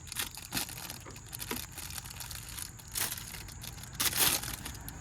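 Plastic packaging crinkling and being torn open, likely the bag holding the new oil filter cap gasket: a few short rustles and a longer crinkling about four seconds in.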